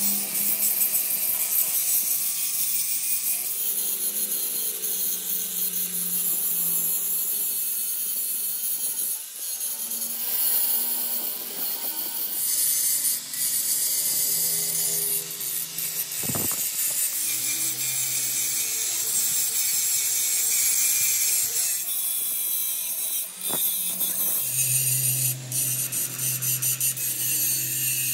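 Electric angle grinder grinding a broken metal gear held in a vise: a steady, high rasp of the disc on the metal over the motor's lower hum, with a few brief dips where the disc eases off the work.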